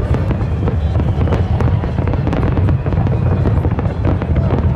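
Aerial fireworks bursting in rapid succession: a continuous low rumble of booms with many sharp cracks and crackles on top.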